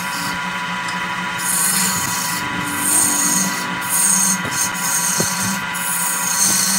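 Lathe gouge cutting into a spinning redwood blank, a scraping hiss as shavings peel off that swells and eases in about three spells.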